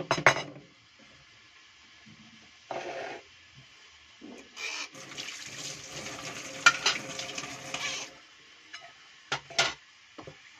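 Kitchen handling sounds: a few sharp clatters of dishes and utensils, a short burst near three seconds, and about three and a half seconds of rustling and scraping from about four and a half seconds in, with a couple of sharp knocks inside it. A pair of light clicks follows near the end.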